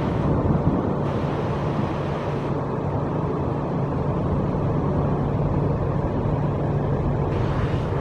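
Diesel commuter train engine running steadily with a low hum, with wind rumbling on the microphone.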